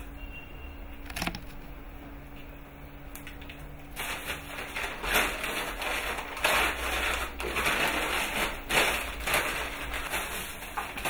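Newspaper and a thin plastic bag crinkling and rustling as food is wrapped by hand, growing much louder and busier about four seconds in.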